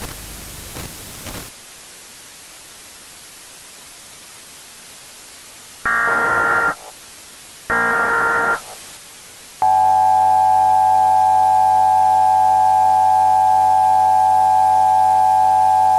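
Emergency Alert System signalling: two short buzzing data bursts about a second long, then the loud steady EAS attention tone, which starts about ten seconds in and holds, all over a faint hiss.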